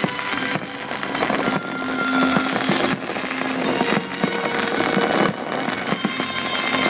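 Fireworks display: many shells bursting in quick succession, with crackling, over the show's music playing underneath.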